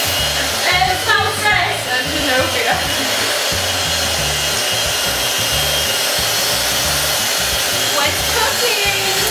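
Electric hand mixer running steadily, with background music and brief voices over it.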